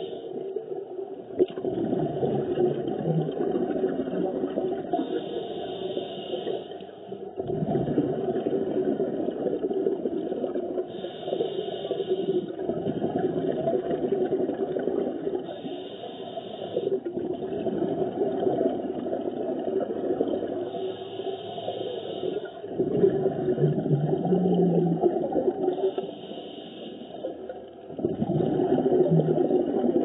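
Scuba diver breathing through a regulator underwater: a rushing, gurgling exhalation of bubbles and a hissing inhalation that repeat every few seconds.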